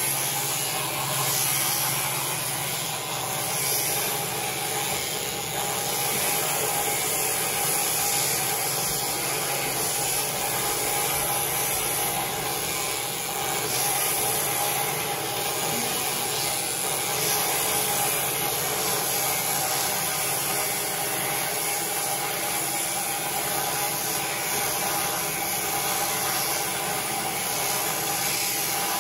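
Sheep-shearing machine handpiece running steadily while its comb and cutter clip through the fleece of a black sheep: a constant motor buzz-hum under the rasp of the cutting.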